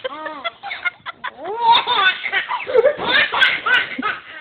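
Baby laughing in a run of short, high-pitched bursts with breaths between them.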